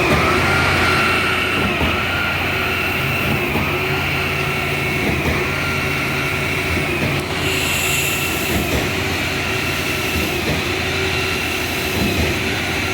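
Concrete-pouring machinery running steadily, with a whine that dips briefly about once a second over a low hum.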